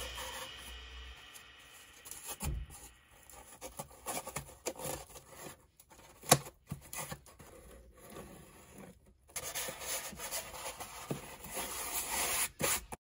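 Corrugated cardboard being handled: hands turning, rubbing and pressing a cardboard ukulele body, giving scattered light scrapes and soft taps. A music track fades out in the first second.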